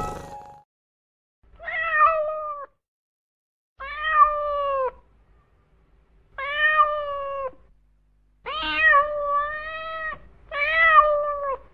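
A cat meowing five times at intervals of a second or two, each meow a drawn-out call of about a second, level in pitch; the fourth meow is about twice as long as the others.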